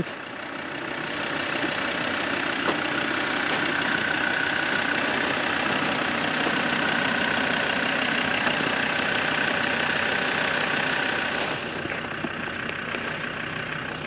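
Waterfall, a steady rush of falling water that grows louder about a second in and eases a little near the end.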